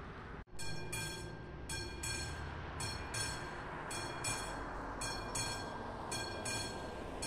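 Classic bell of a level-crossing warning system (AŽD 71) ringing in a steady repeating pattern of paired strikes, starting about half a second in: the crossing warning is active with the barriers down for an approaching train.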